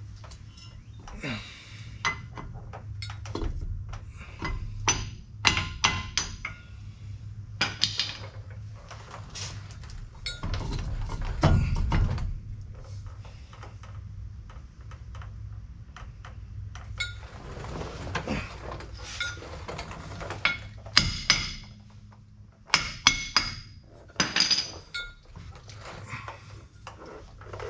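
Hand wrench and steel parts of a truck driveshaft's U-joint and yoke clinking and knocking as the joint is unbolted and worked loose: irregular metallic clicks and clanks, with a few heavier knocks.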